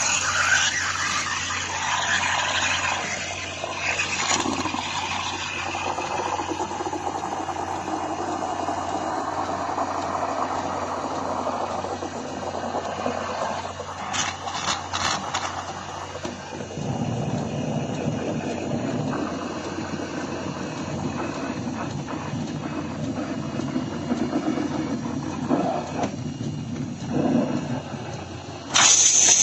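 De'Longhi Magnifica S automatic espresso machine running a cycle: a steady mechanical whirr that shifts to a lower hum about two-thirds of the way through, then a loud hiss starts right at the end.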